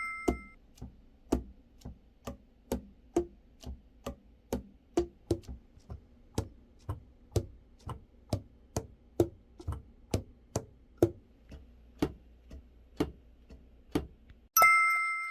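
Saxophone keys being worked without blowing: pads clapping shut on the tone holes as sharp clicks, about two a second, unevenly spaced, each with a short low pitched pop. A bright chime-like ding rings once at the start and again just before the end.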